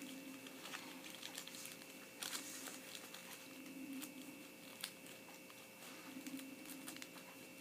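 Faint clicks and light rustling of a plastic doll and its small clothing pieces being handled and fitted, over a steady low hum.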